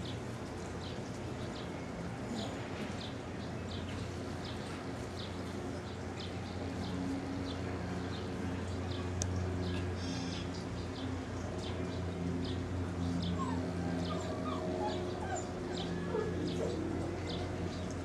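German Shepherd puppies whimpering and squeaking in play, mostly in the second half, over repeated short, high bird chirps and a steady low hum.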